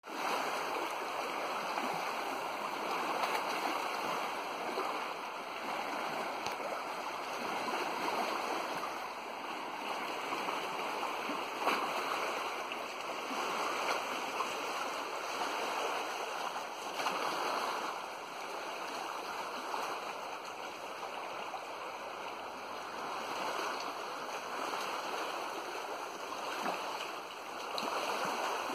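Steady rushing of water, swelling and easing every few seconds.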